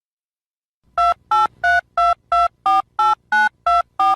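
Telephone keypad dialing tones: about ten quick beeps, each a pair of steady tones, about three a second, the pitch pair changing from beep to beep as different digits are keyed. They start about a second in, after silence.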